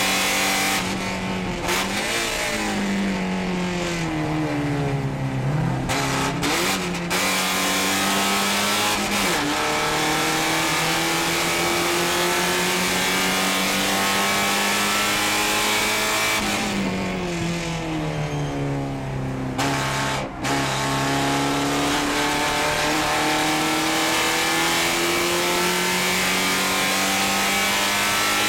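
Porsche 944 Spec race car's four-cylinder engine heard from inside the cabin at racing speed. The engine note falls twice as the car slows, about two to five seconds in and again around seventeen to twenty seconds in, and otherwise climbs in long rising pulls through the gears.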